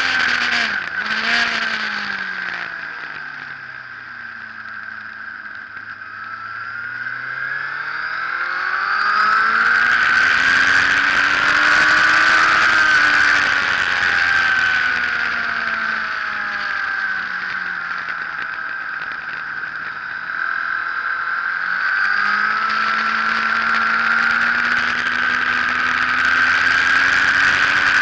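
Sport motorcycle engine heard onboard over a steady wind rush. The engine note falls over the first few seconds, climbs hard, eases off again about halfway through, and rises once more near the end.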